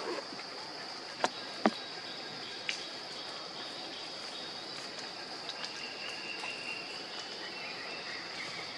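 Steady high-pitched insect drone over an even outdoor hiss, with three sharp clicks early on and a faint thin tone from about halfway.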